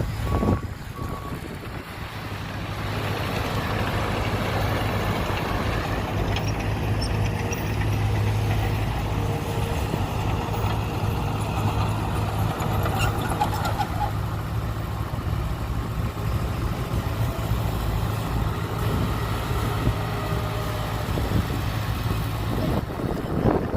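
Heavy diesel earthmoving machinery running steadily, with a reversing beeper pulsing briefly at the start.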